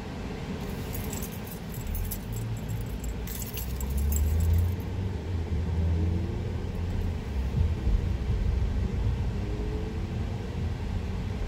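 Low rumble and road noise inside a moving car's cabin, growing louder about four seconds in. Light metallic jingling and clicking runs through the first few seconds.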